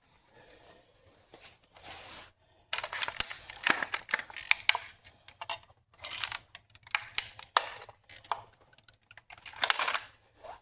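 Flattened toy car crackling and clicking, its broken plastic and metal pieces shifting under pressure and handling, in several bursts of sharp clicks.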